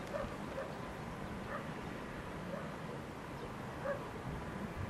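A dog barking faintly and repeatedly, short barks about once a second at uneven spacing, over a steady low outdoor background.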